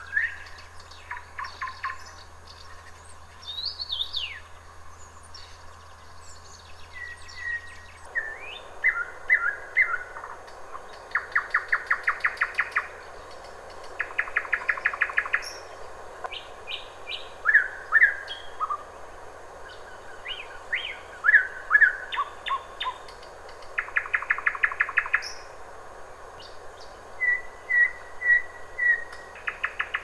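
Nightingale singing: short phrases of fast repeated notes, about a second long, alternate with whistles and brief glides, with short pauses between phrases.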